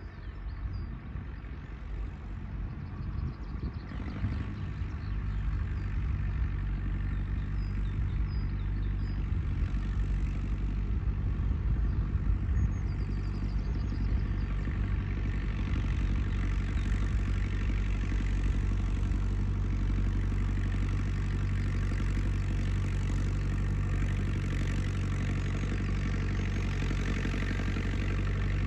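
IHC 844 AS tractor's four-cylinder diesel engine running steadily as the tractor pulls a meadow roller, growing louder over the first few seconds as it approaches and then holding level. A few faint bird chirps in the first half.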